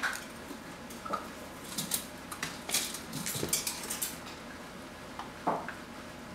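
Stainless steel puppy bowl clinking and rattling as Vizsla puppies eat from it and push it about: a scatter of short metallic clicks, busiest in the middle.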